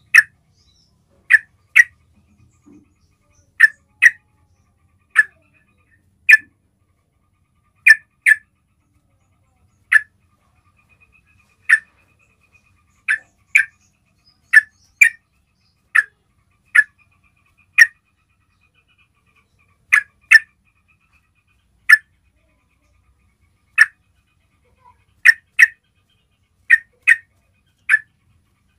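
Yellow-vented bulbul (trucukan) giving short, sharp chip calls, singly or in quick pairs, every second or two: its basic call, used to draw a response from other trucukan.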